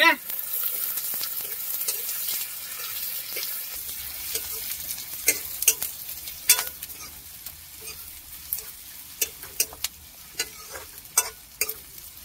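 Chopped onions frying in smoking-hot mustard oil, sizzling while they are stirred, with a utensil ticking and scraping against the pan every second or so. The sizzle is loudest for the first few seconds, then settles to a steady lower hiss.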